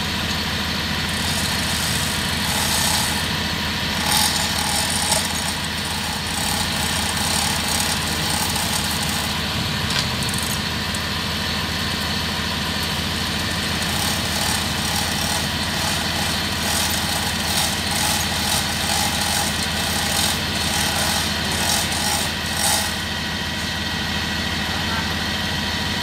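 Heavy machinery diesel engine idling steadily, with light clicks and taps now and then.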